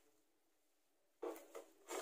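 Faint spatula scrapes against a nonstick pan as thick semolina-and-flour dough is stirred: three short strokes in the second half.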